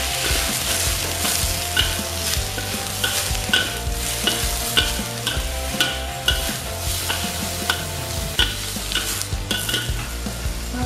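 Squid and sliced vegetables sizzling in hot oil in a steel wok while a metal wok spatula stirs them, scraping and clinking against the pan about twice a second.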